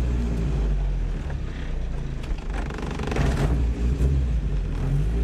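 The Datsun 510's swapped-in turbocharged KA24DET 2.4-litre four-cylinder engine runs steadily as the car is driven. Its note breaks up briefly near the middle, with a short rush of noise about three seconds in, then settles again.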